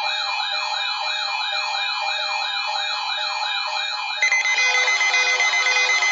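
Electronic siren sounding in fast, repeating falling sweeps, about two and a half per second, with a warbling higher tone above. About four seconds in, several steady tones and a crackle join it.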